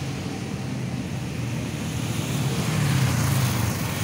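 Low rumble of a road vehicle going by, swelling to its loudest about three seconds in.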